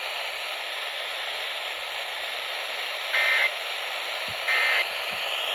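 Static hiss from a Midland ER310 weather radio. Two short, harsh digital data bursts of the Emergency Alert System end-of-message code come through about a second and a half apart, marking the end of the warning broadcast.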